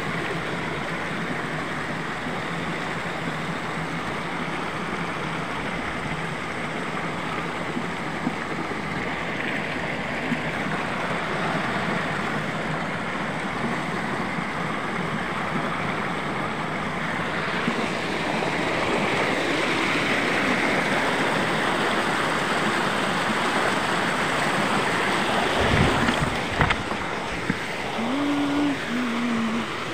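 Creek water rushing and splashing over rocks, a steady rush that grows a little louder partway through. A few knocks come near the end.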